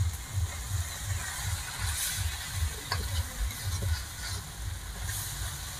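A small engine running with a steady low thumping, about three beats a second, while a spatula taps lightly against an iron wok a couple of times.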